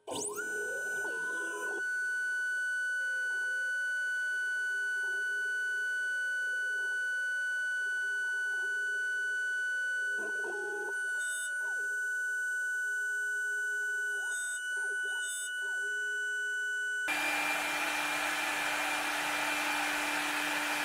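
Homemade CNC milling machine's spindle running with a steady high whine of several held tones while a 10 mm end mill machines a nylon block, with small wavering in the sound as it cuts. Near the end the sound changes to a louder, hissier mix with a lower steady tone.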